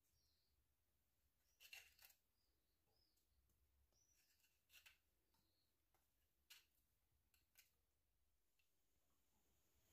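Near silence, with about five faint clicks as dry tea biscuits are set down one by one in a glass baking dish.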